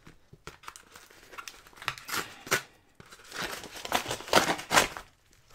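Kraft-paper mailer being torn open by hand and crinkled, a run of irregular paper rustles and rips, loudest about four seconds in.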